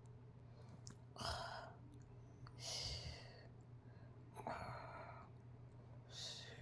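A toddler mimicking a snore with four heavy, airy breaths, spaced about a second and a half apart.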